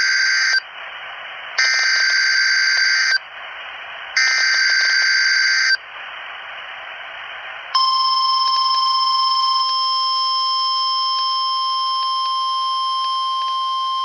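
Emergency Alert System header: three bursts of screechy digital data tones, each about a second and a half long, with radio static in the gaps between them. About eight seconds in, a steady single-pitched alert tone starts and holds.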